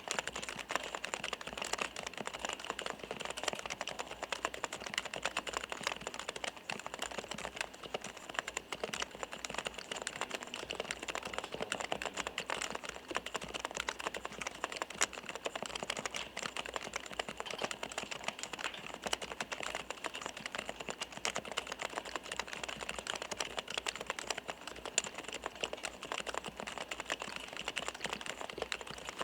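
Continuous fast typing on a Topre REALFORCE R3 keyboard with electrostatic capacitive (Topre) switches: an unbroken stream of keystrokes, each with the distinctive soft 'kotokoto' clack of the keys bottoming out.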